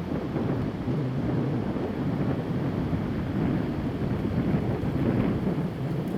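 Strong wind buffeting the microphone: a continuous low rumble with a thinner hiss above it, swelling a little now and then.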